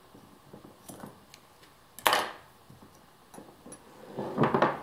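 Scissors and glass jars wrapped in jute twine being handled on a wooden table: faint snips of the twine, a sharp clack about two seconds in, and a louder rustling clatter near the end as the jars are lifted.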